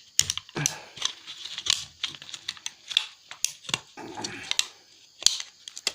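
Hard plastic casing of a laptop battery pack being pried at with a metal tool: irregular clicks, scrapes and small cracks as the case starts to break.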